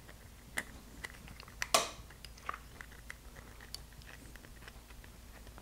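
Light clicks and ticks of a throttle cable and coil return spring being handled on a carburetor cap as the spring is compressed by hand, with the sharpest click just under two seconds in.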